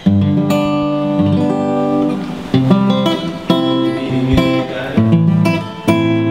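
Acoustic guitar strumming chords as a song's accompaniment, with sharp strokes that ring on between them.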